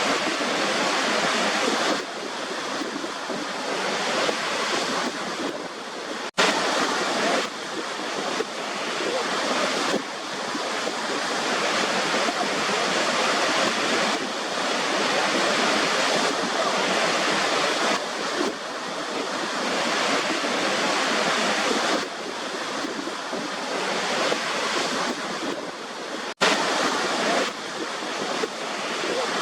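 Waterfall rushing as a steady, dense hiss of falling water, with little bass. Twice the sound cuts out for an instant and picks straight up again.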